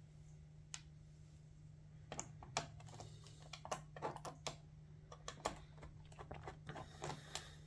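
Faint small clicks and ticks of a screwdriver working screws out of a laptop's plastic bottom case, a few scattered at first, then a quick irregular run of clicks through most of the rest, over a steady low hum.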